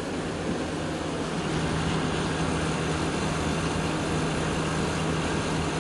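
Window air conditioner running as a heat pump: its fan blowing steadily over the drone of a rotary compressor, with a steady hum that firms up about a second and a half in.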